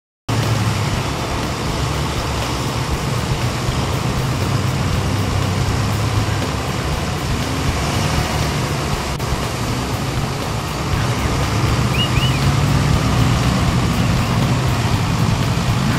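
Monster truck engine running steadily under load as the truck drives afloat through a lake, its giant tires churning and splashing the water. The drone grows a little louder about two-thirds of the way in.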